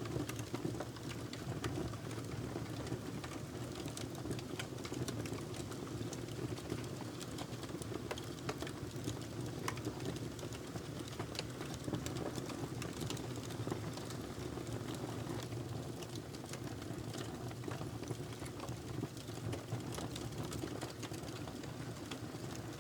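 Wood fire crackling in a fireplace: a steady low rush of burning with frequent small, sharp pops and crackles scattered throughout.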